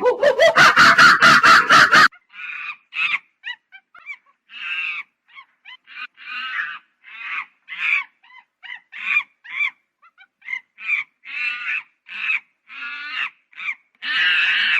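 Monkey calling: a harsh burst of rapid pulses for about the first two seconds, then a long run of short high-pitched calls, roughly two a second at uneven spacing.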